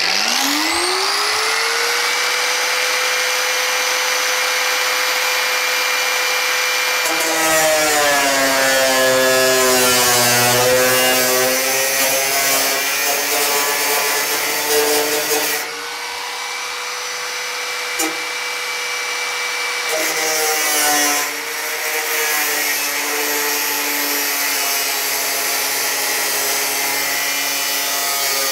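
Angle grinder cutting through the sheet-steel roof panel of a Nissan NV400 van. It spins up with a rising whine and runs free at first. From about seven seconds in, its pitch drops and wavers as the disc bites into the metal; it frees up again around the middle, then settles back into the cut for the rest.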